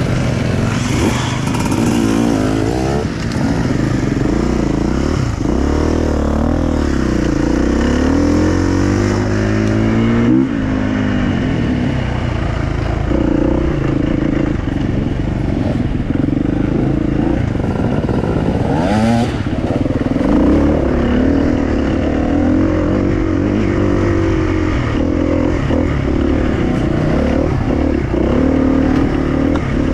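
Enduro motorcycle engine running continuously while ridden off-road, its pitch repeatedly rising under throttle and falling back as the rider shifts and eases off, with a sharp drop about ten seconds in.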